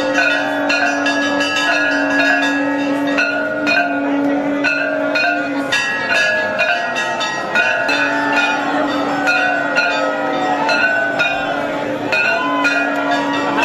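Hindu temple bells clanging in rapid, repeated strikes during worship, over a steady low drone that is held for several seconds at a time and breaks off twice.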